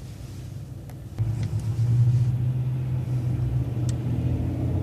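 City bus engine running quietly, then powering up about a second in as the bus pulls away from a stoplight, a loud steady low drone that holds.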